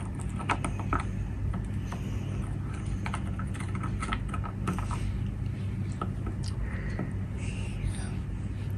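Thin wooden stick stirring water in a small plastic cup, tapping and scraping against the cup's sides in irregular light clicks, over a steady low hum.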